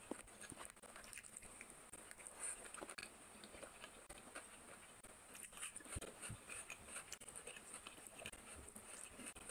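Faint close-miked eating sounds: wet squishing and small clicks as a hand kneads rice and curry on a plate, with chewing and lip smacking, over a steady high hiss.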